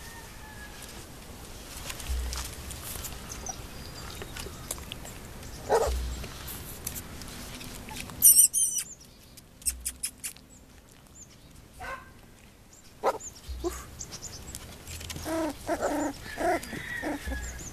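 Four-week-old Corgi-Sheltie mix puppies whining and whimpering in short pitched cries while crowding in to nurse, with several close together near the end. A very brief high-pitched chirp comes about eight seconds in.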